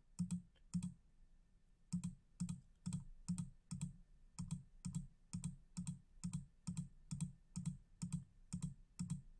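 Computer mouse button clicked over and over, about two to three short clicks a second with a brief pause about a second in, stepping back through a string of undos.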